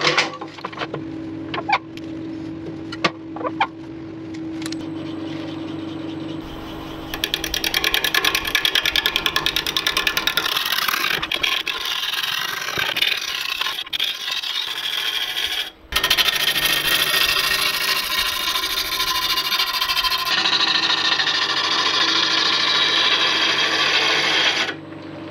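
Wood lathe spinning a bark-covered laburnum log while a gouge roughs it round. The cut starts as a fast, rapid chatter against the uneven surface, then becomes a steady cutting hiss, and stops shortly before the end. The lathe's steady motor hum runs underneath throughout.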